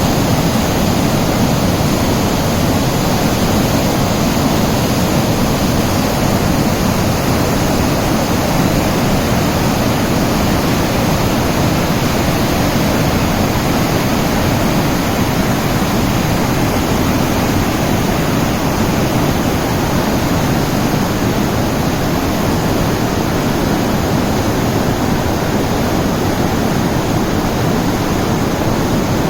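Mountain waterfall: water falling and splashing in a loud, steady rush.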